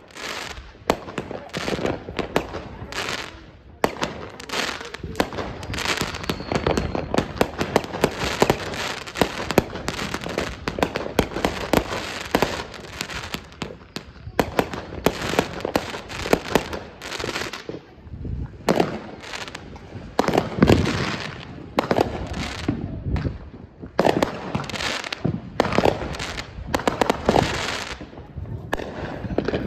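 Consumer aerial fireworks going off in quick succession: a dense run of bangs, pops and crackles, easing briefly a few times, with the loudest bang about two-thirds of the way through.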